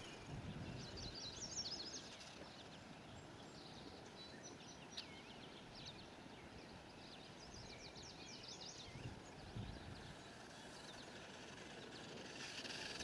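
Songbirds singing in short, quick trilled phrases every few seconds over faint low wind rumble. Near the end a faint rising whir comes in, the small electric RC truck approaching across the dirt track.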